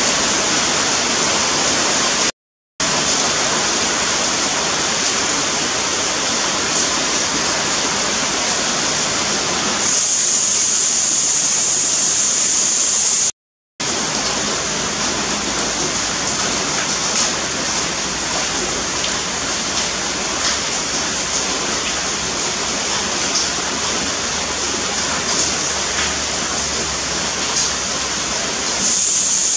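Steady rain falling on leafy trees, an even hiss. The sound cuts out completely for a fraction of a second twice, a couple of seconds in and again about thirteen seconds in.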